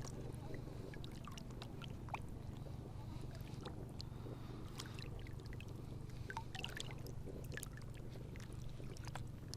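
Water lapping and small splashes at the edge of a reservoir, scattered irregular ticks over a low steady hum.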